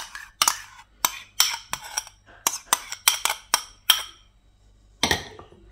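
Metal spoon clinking and scraping against a white ceramic bowl while yogurt is scraped out, a quick run of about a dozen ringing clinks, roughly three a second, that stops about four seconds in, followed by a softer scrape.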